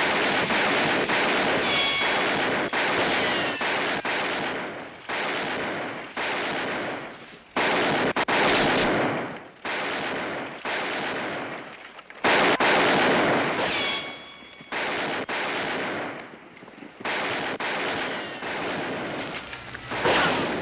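Heavy gunfire in a western film shoot-out: many shots in quick succession, each with a long echoing tail, the volleys overlapping with a few brief lulls.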